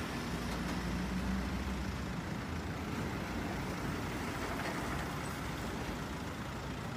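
Aerial work platform truck's engine running steadily: a low, even rumble with a hiss over it.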